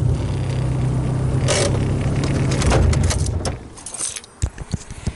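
Honda Civic engine running steadily, with a brief burst of noise about one and a half seconds in, then shut off about three and a half seconds in, followed by small clicks and rattles.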